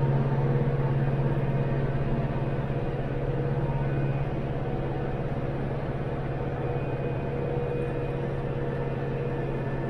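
Branson 5520CH compact tractor's diesel engine running steadily while the tractor works along a ditch with a rotary cutter hitched.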